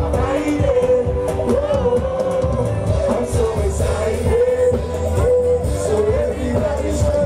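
Loud pop concert music over a PA system: a singing voice carrying a melody over a steady, bass-heavy beat.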